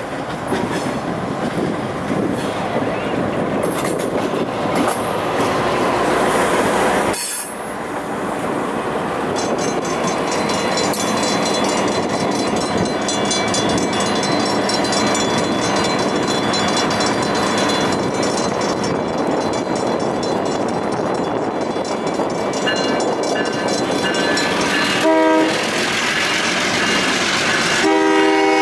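A diesel end-cab switcher locomotive approaches a grade crossing over steady background noise. The crossing bell rings from about a third of the way in. Near the end the locomotive's air horn sounds a short blast, then a longer one.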